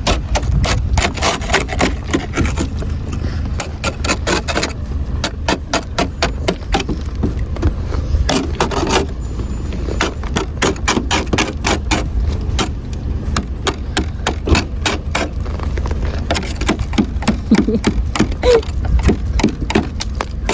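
Ice scraper scraping ice off a frozen car window in many short, repeated strokes, over a steady low rumble.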